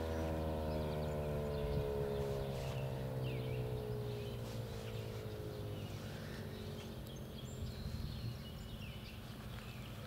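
Federal Signal 2001-130 rotating outdoor warning siren winding down after its test run, its rotor coasting to a stop. The tone falls steadily in pitch and fades out over about seven seconds.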